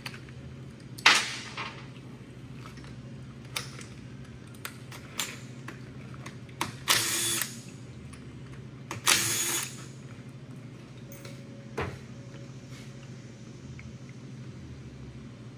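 Cordless drill/driver run in two short bursts of under a second each, about seven and nine seconds in, backing out bolts on a 4L60E transmission. A sharp knock comes about a second in, with a few lighter clicks of tools and parts, over a steady low hum.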